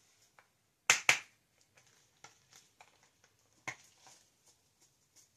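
Sharp clicks: two loud ones close together about a second in, another just before four seconds, with fainter ticks between.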